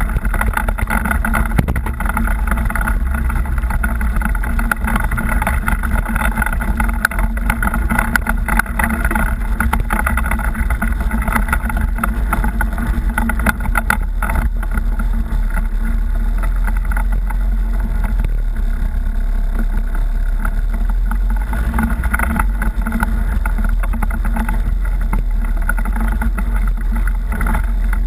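Engine of an off-road vehicle running steadily while it rides a rough rocky trail, with scattered knocks and rattles from the bumps.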